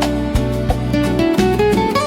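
Slow instrumental jazz music: guitar notes plucked over a bass line, with notes starting at a steady pace.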